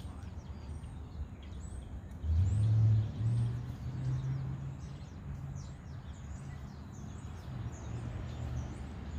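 A low engine hum from a motor vehicle swells about two seconds in, is loudest for a second or so, then fades slowly, while small birds chirp throughout.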